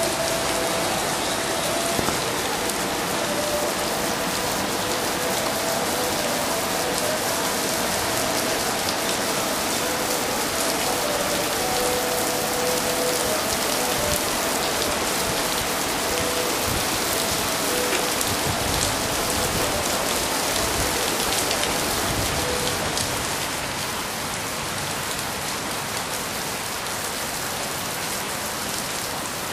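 Heavy storm rain falling and splashing on hard surfaces: a dense, steady hiss with fine pattering drops. It eases slightly a little past two-thirds through.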